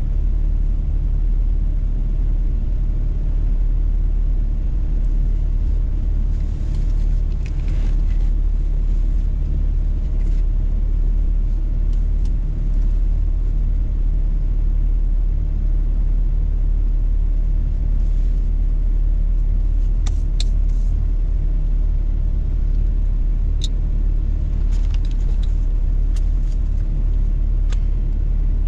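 Steady low rumble of a car driving at highway speed, engine and tyre noise heard from inside the cabin, with a few short faint clicks in the second half.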